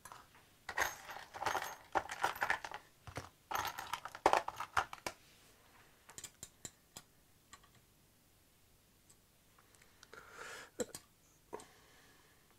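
Allen keys and small metal hardware clinking and rattling as they are handled, in two dense runs of light metallic clicks with scattered clicks between them and another short run near the end.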